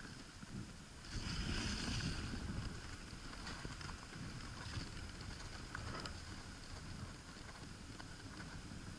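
Dog sled gliding over snow on a frozen lake: a steady hiss of the runners with wind on the microphone, louder for a second or two starting about a second in.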